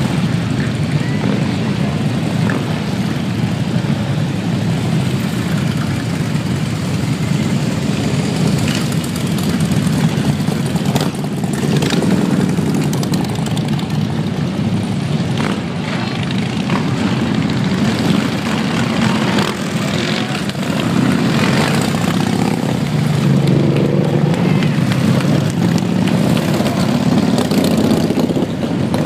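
Many large cruiser and touring motorcycles riding past slowly in a long column, their engines making a continuous low rumble that swells as groups of bikes go by.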